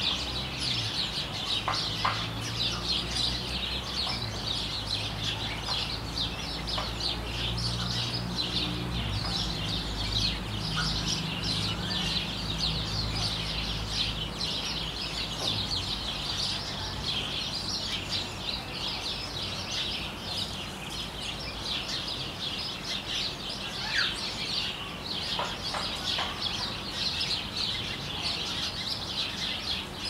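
A dense chorus of small birds chirping continuously, with a steady low hum underneath that fades out about halfway through.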